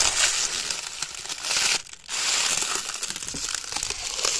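Thin plastic window-tint film crinkling and rustling as it is handled, in two stretches with a brief pause about two seconds in.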